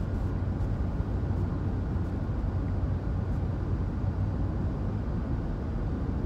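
Steady low road rumble of a moving car, heard from inside its cabin.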